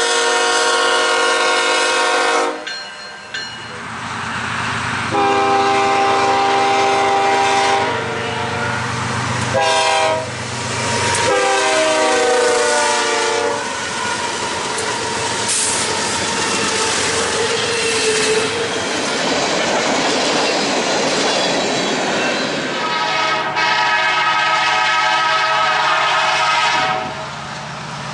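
Locomotive horn sounding two long blasts, a short one and a long one, the long-long-short-long pattern blown for a level crossing, the last blast sliding slightly down in pitch as the train goes by. Then the rumble and clatter of the passing train's cars, and one more long horn blast near the end.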